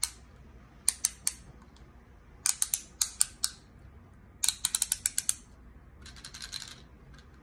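Small plastic lever of a miniature toy claw machine being twisted, giving sharp ratcheting plastic clicks: single clicks at first, then quick runs of several, and a softer scraping rattle near the end.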